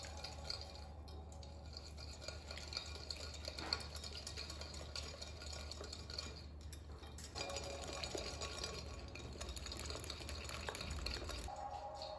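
A utensil stirring in a bowl, scraping and clinking lightly against it, with one sharper knock about four seconds in.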